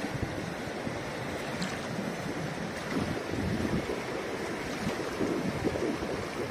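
Fast, shallow mountain river rushing over stones, a steady wash of water, with wind gusting on the microphone.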